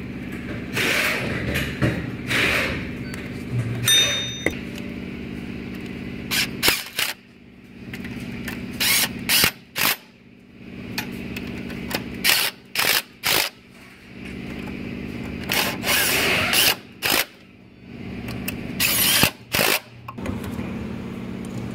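A power tool run in many short bursts, often two or three in quick succession, over a steady mechanical hum.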